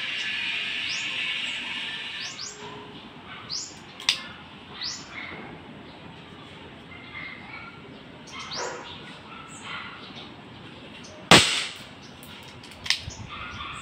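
Birds chirping in short rising calls, then a single sharp, loud shot from a CO2 airsoft revolver about eleven seconds in, with a smaller crack a second and a half later.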